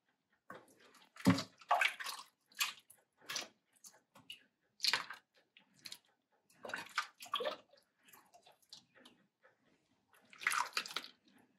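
Hot soup ladled from a stainless steel pot into a ceramic bowl: one short pour and splash of broth after another, at irregular intervals.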